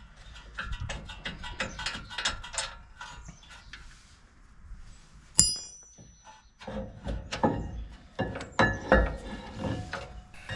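Metal tools and brake parts clicking and knocking while a front brake caliper is unbolted and handled. There is a single sharp, ringing metallic ping about five seconds in, and heavier knocks near the end.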